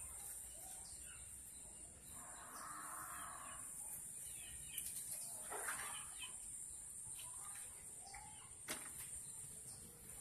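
Faint outdoor ambience: a steady high hiss with a few short animal calls, the clearest just before the middle, and a few light clicks.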